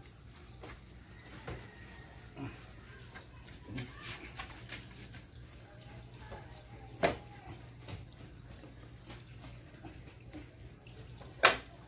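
Hand-washing a motorcycle: a wet cloth rubbing the bodywork, with water splashing and dripping and scattered soft knocks. Two sharper clicks stand out, the louder one near the end.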